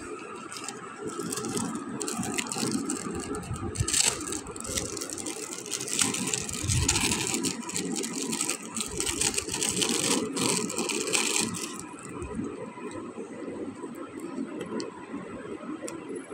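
Clear plastic packaging bag crinkling and rustling as it is handled and opened, loudest and densest from about four to twelve seconds in, over a steady background noise.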